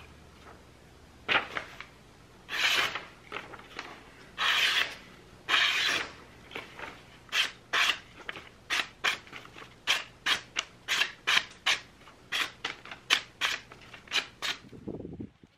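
Freshly sharpened hatchet edge slicing a sheet of paper: a few longer slicing strokes, then a quick run of short cuts at about three a second.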